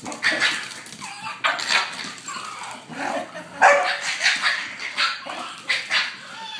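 Two dogs, a pug and a large white fluffy dog, play-fighting, giving a string of short, loud barks over several seconds.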